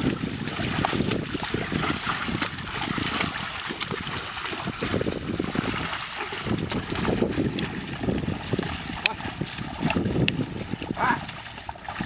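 A pair of bullocks splashing through flooded paddy mud as they drag a leveller, with irregular sloshing and squelching of water and mud.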